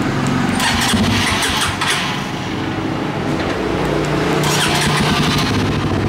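Honda CBR150 motorcycle's single-cylinder engine, remote-started through an aftermarket anti-theft alarm, running at a steady idle.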